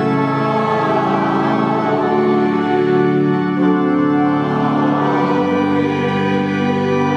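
Church organ playing a hymn in sustained chords that change every second or so.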